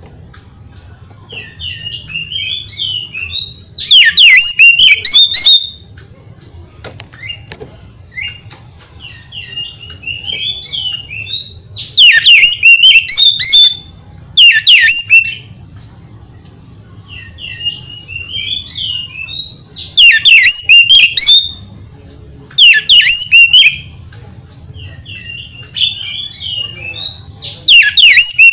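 Oriental magpie-robin (kacer) song played as a lure recording to provoke a captive kacer. A soft twittering lead-in builds into loud whistled, trilling phrases, and the same song repeats about every eight seconds.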